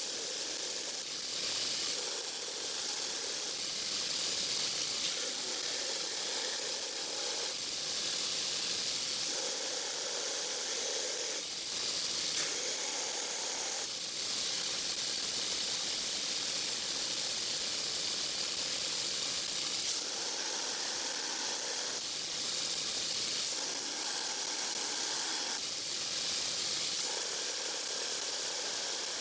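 A grinder grinding the flat sides of a san mai steel knife blade: a steady, hissing grind whose tone shifts every second or two.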